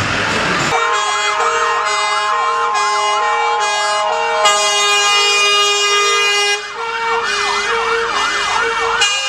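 Fire engine sounding its sirens. Two notes alternate quickly hi-lo, with a fast whooping wail over them; the wail drops out for about two seconds midway and then comes back.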